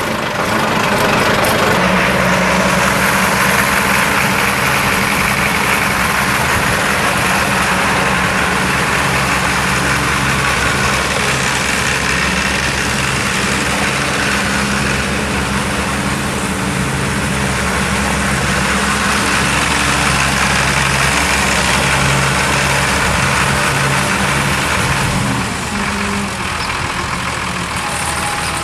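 Allis-Chalmers 185 tractor's 2800 4.9-litre six-cylinder diesel engine idling steadily, a little quieter for the last few seconds.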